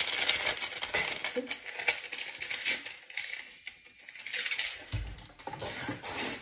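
Paper sachets crinkling and small kitchen items clinking and clattering as cupboards are rummaged through, with a dull thump about five seconds in.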